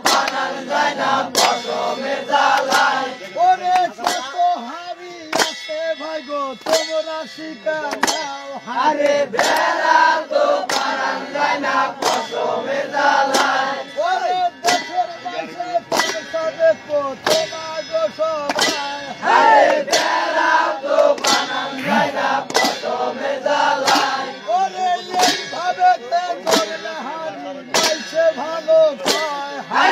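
Boat-race rowers chanting a rowing song together, with a metal clang struck at a steady pace of about three beats every two seconds to keep the stroke.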